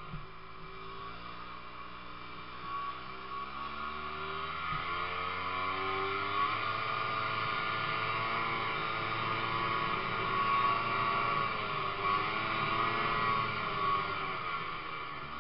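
Ski-Doo snowmobile engine running under way, its revs rising and falling as the sled rides over the snow.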